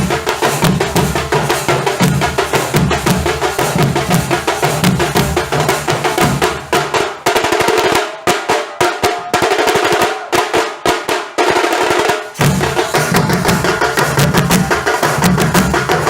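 Nasik dhol ensemble drumming: heavy dhol strokes under fast tasha rolls. About eight seconds in the low dhol beats drop out for roughly four seconds, leaving only the sharp tasha strokes, then the full ensemble comes back in.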